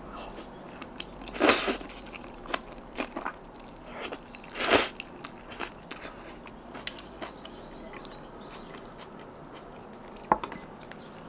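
A person eating Chapagetti black-bean instant noodles: two loud slurps of noodles, about a second and a half and about four and a half seconds in, with small chewing clicks in between and after.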